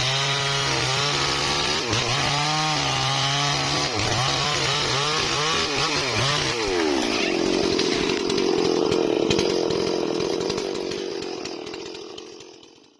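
Stihl MS 440 two-stroke chainsaw running hard and cutting timber, its engine pitch wavering up and down as it works. About seven seconds in, the sound settles into a steadier, higher note, then fades out near the end.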